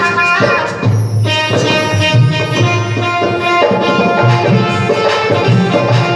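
Instrumental devotional tune: a melody instrument in long held notes over a steady hand-drum rhythm. The band is playing during a sound check.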